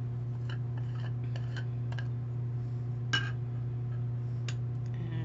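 Small plastic loose-setting-powder jar (Kristofer Buckle Casting Call) being handled and its screw lid twisted off: scattered light clicks and taps, with one sharper clink about three seconds in. A steady low hum sits underneath.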